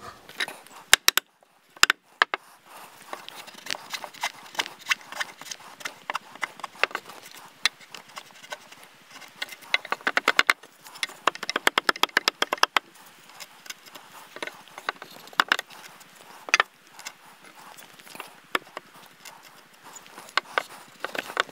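Framing chisel paring out the corners of the notches in a red cedar stair stringer: a run of short, sharp wooden clicks and taps, packed most densely about halfway through.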